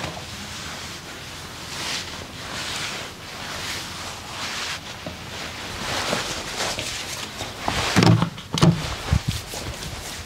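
Hands rubbing and stroking over skin in massage strokes, a soft swish every second or so, with a few heavier pats or thumps near the end.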